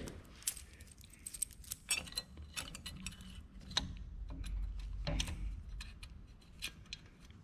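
Irregular light metallic clicks and clinks: the links and pins of a pipe vise chain being handled and worked with pliers.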